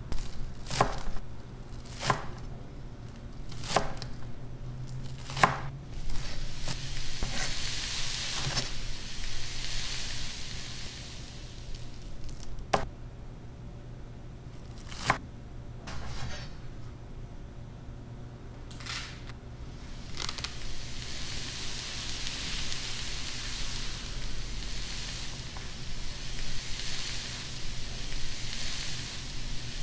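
Santoku knife chopping a red bell pepper on a wooden cutting board: single sharp knocks a second or more apart. There is a stretch of sizzling about 7–10 s in, and from about 21 s on, beef and broccoli sizzle steadily as they fry in a pan.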